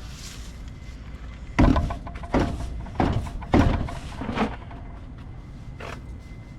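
A series of five dull thumps or knocks, about half a second to a second apart, the first the loudest.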